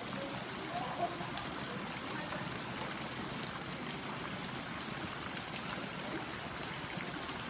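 Water splashing as a swimmer does backstroke in a pool, heard as a steady wash of water noise with small splashes from the arm strokes.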